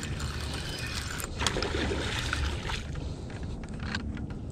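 Wind rumbling on the microphone, with scattered clicks from a spinning reel as a hooked fish is fought and reeled in.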